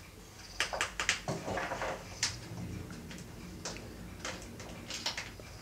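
An Oriental-Siamese cross cat purring faintly, a low rumble, with a scatter of short light clicks and ticks throughout.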